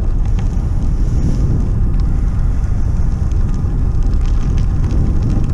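Steady low rumble of wind buffeting the microphone of a camera carried on a moving bicycle.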